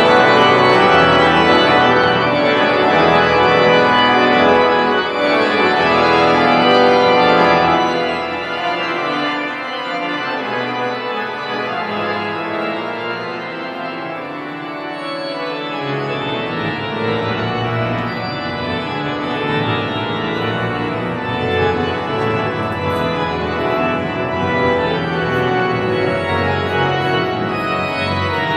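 Large pipe organ playing a piece in a stone cathedral, in sustained full chords. It is loud and full at first, drops to a softer, thinner sound without the deep bass about eight seconds in, and builds again with the bass returning past the middle.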